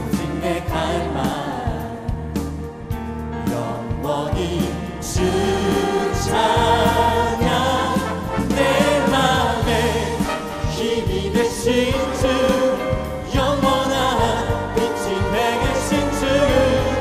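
Church worship team and choir singing a contemporary praise song with band accompaniment, steady bass and percussion underneath; the music grows louder about five seconds in.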